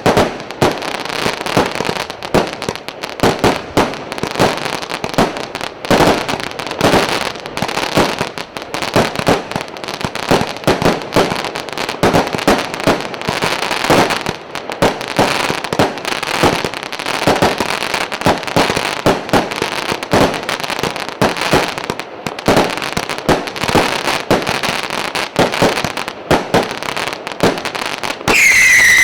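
A Premier Salut 'Batalia' 280-shot fireworks battery firing a rapid, uneven string of shots and crackling bursts, several a second. About a second before the end, a loud whistling shot starts, its pitch falling slowly.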